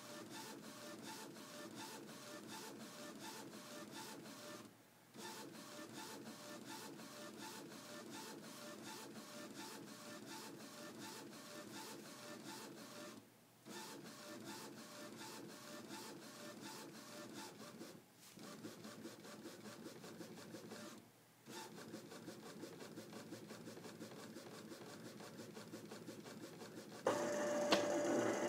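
Epson Stylus S22 inkjet printer, converted for direct-to-garment printing, printing: the print head carriage shuttles back and forth with a fast, even ticking whir, pausing briefly four times between passes. Near the end a louder, steadier motor whine starts as the print tray is fed out.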